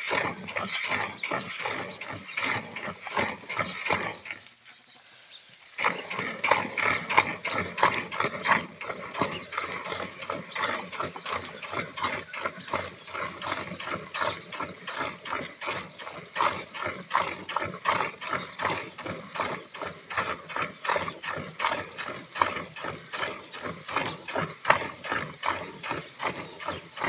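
Hand milking a Holstein Friesian cow: streams of milk squirt rhythmically into a steel bucket already full of frothy milk, with a pause of about a second roughly five seconds in.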